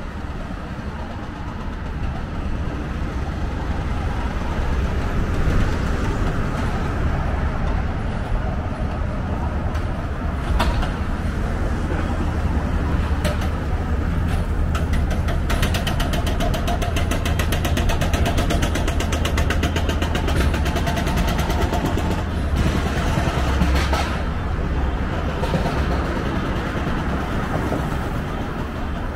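Road traffic: cars and trucks running past with a steady low rumble. For several seconds in the middle, a closer engine adds a rapid, even rattle.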